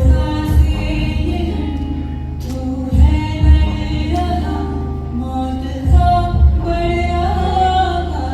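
Voices singing a slow song over a musical accompaniment, with a low beat of two hits repeating about every three seconds.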